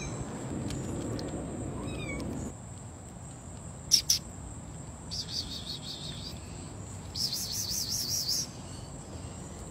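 Small kitten mewing: two high-pitched, wavering cries in the second half, with two sharp clicks just before them.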